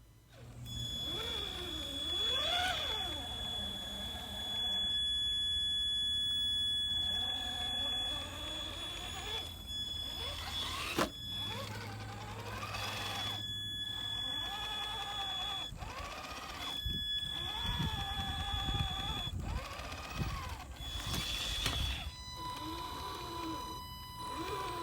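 RC crawler's 12-turn brushed motor run from a Hobbywing 1080 ESC: a steady high-pitched motor whine from the ESC's pulse-width modulation, with a lower drivetrain whine that rises and falls with the throttle. Both cut out and return several times as the truck stops and starts.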